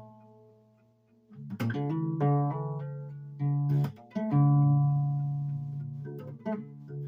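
Guitar music: plucked notes and chords that ring out and fade. A chord dies away, and after a short lull the playing starts again about a second and a half in.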